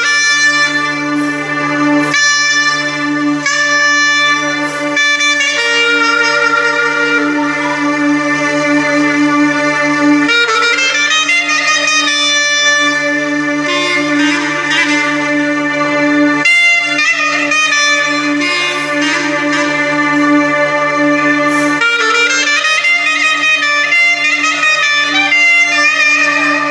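Clarinet playing a quick, ornamented melody with pitch slides, over a steady low drone held on an electronic keyboard.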